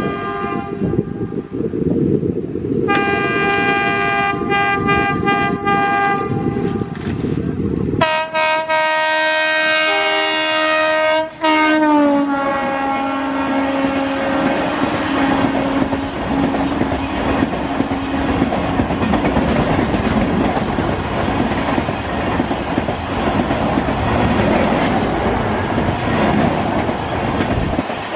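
Indian Railways WAP-7 electric locomotive sounding its horn in several blasts as it approaches, ending in a long blast whose pitch drops sharply as it passes, about eleven seconds in. Then the train's coaches rush past at speed in a steady, loud rolling noise.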